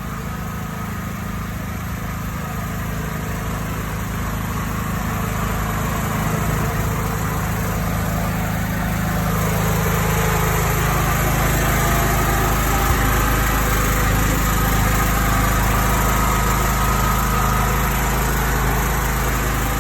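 An engine running steadily, growing slowly louder over the first ten seconds and then holding even.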